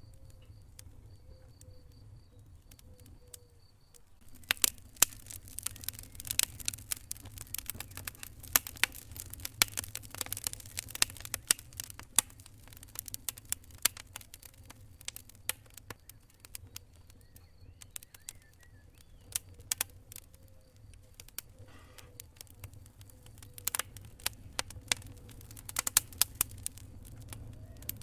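Wood fire in a fireplace crackling: irregular sharp pops and snaps over a low steady hum. The snaps are sparse for the first few seconds, then come thick and fast.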